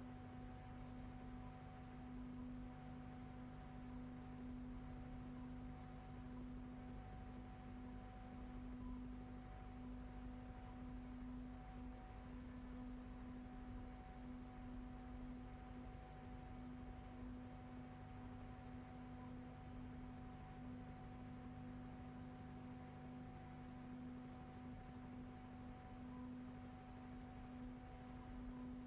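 Faint steady electrical hum, one low tone with weaker higher tones above it, over light hiss, unchanging throughout: the empty soundtrack of a silent newsreel, with no sound from the animals.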